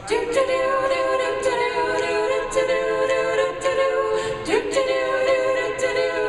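Several voices singing held, wordless harmony chords, sliding up to a new chord about two-thirds of the way through, with a light tick keeping time about twice a second.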